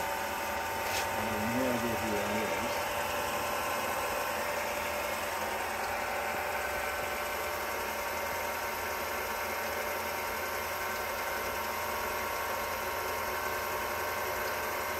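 Keystone R-8 8mm film projector running steadily, its motor and film-advance mechanism making an even mechanical whir, just after lubrication and a new rubber drive belt.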